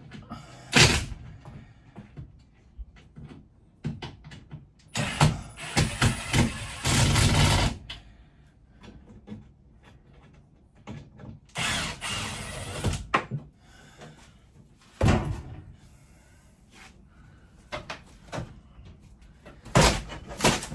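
Interior panels of a 1972 Winnebago Brave being wrenched loose by hand during a teardown: a few sharp knocks and bangs, with two longer stretches of rough scraping and rattling.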